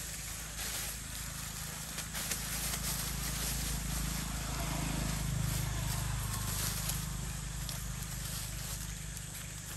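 Faint rustling and crackling of dry leaf litter as long-tailed macaques run and scuffle over it, over a steady low rumble that swells a little about halfway through.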